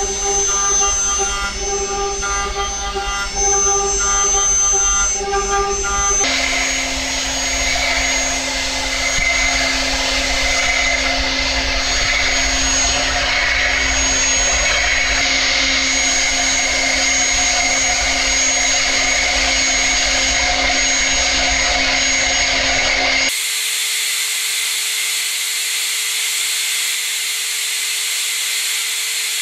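Hwacheon UH500 vertical machining center's built-in motor spindle milling a metal mold block: a steady spindle whine over dense cutting noise. The sound changes abruptly twice as the cut moves from semi-finishing at 12,000 rpm, to rest machining at 14,000 rpm, to fine roughing with a tiny ball-nose tool at 26,000 rpm. In the last part it becomes a thin high whine and hiss with no low rumble.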